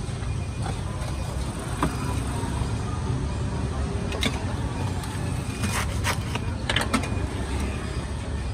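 Steady low rumble of street traffic, with scattered sharp clicks and clinks of utensils against metal pots as a vendor fills a baguette sandwich. The clicks come in a cluster a few seconds before the end.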